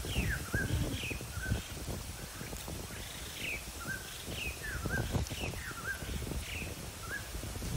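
A bird calling over and over, a falling whistled note that ends in a short upturned twist, repeated about once a second, over a low rumble of wind or handling noise.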